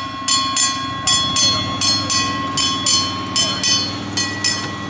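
Bell ringing over and over, about three strikes a second, on a small trackless tram train as it pulls away. The tram's low engine hum runs underneath.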